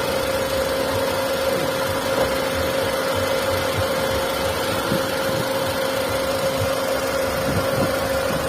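Hyundai Santro 1.1-litre four-cylinder petrol engine idling steadily, with a constant whine over the running: the abnormal engine noise the car is being checked for.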